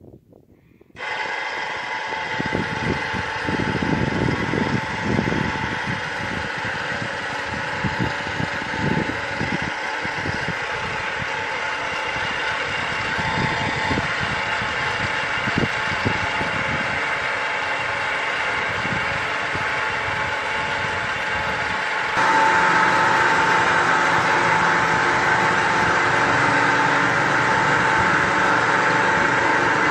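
Winch motor running steadily as it hauls the elevator platform up a steel angle-iron tower. It is noisy, with the vibrating angle iron adding to the din. It starts about a second in and turns louder, with a strong steady tone, about 22 seconds in.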